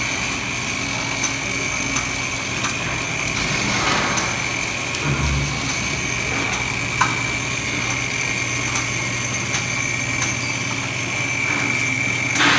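CNC router spindles with aggregate angle heads running and cutting the workpieces: a steady high whine over a low hum, with faint regular ticks about every 0.7 seconds.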